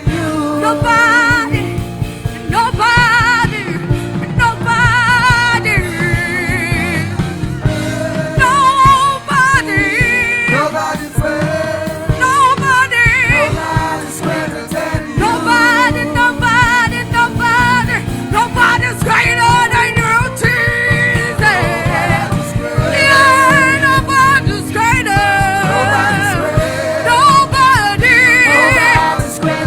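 Gospel worship song: a singer's voice with vibrato over a band accompaniment.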